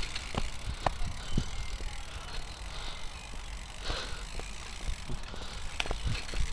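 BMX bike riding fast over a packed dirt trail: a steady low rumble of tyres and wind on the microphone, with a handful of sharp knocks and rattles from the bike over bumps.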